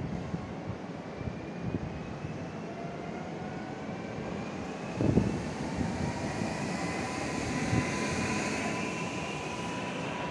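ED78 electric multiple unit running on the rails with a rumble, its electric drive whine climbing slowly in pitch as the train gathers speed. A sharp knock about five seconds in and a smaller one near eight seconds.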